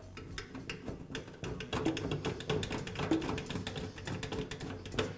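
Hand screwdriver turning a screw into the sheet-metal fan housing: a steady run of small clicks and scrapes as the screw is driven in.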